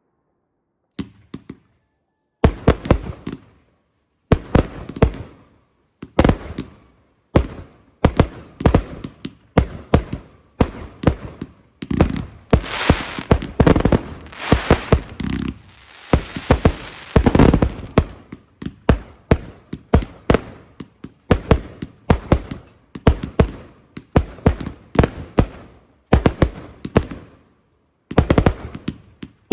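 Fireworks display: aerial shells bursting in a rapid run of sharp bangs, starting about a second in. The bangs come thickest near the middle, where a continuous crackle fills in between them.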